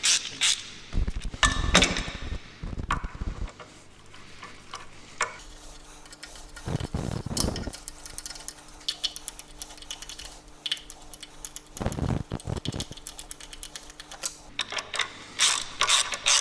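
Metal hand tools and engine parts being handled: irregular clusters of clinks and clicks, with a few dull knocks.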